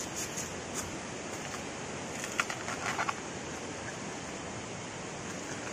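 Dry bamboo leaves and stalks crackling and snapping as bamboo shoots are gathered by hand, with a short cluster of sharper snaps about two to three seconds in. A steady rushing noise runs underneath.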